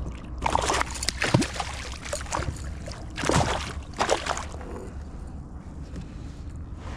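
Water splashing in several short bursts over the first four and a half seconds as a hooked largemouth bass is played at the kayak's side and landed.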